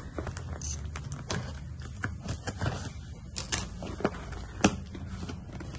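Cardboard parcel being opened by hand: packing tape peeled and torn, and the box handled and tapped on the table, giving a run of irregular clicks and crackles. The sharpest tap comes a little past two-thirds through.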